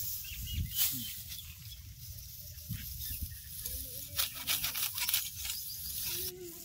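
Dry wheat stalks rustling and crackling as they are bunched by hand and cut near the ground with a sickle, with a few sharp crunches of the cut, over a low wind rumble on the microphone.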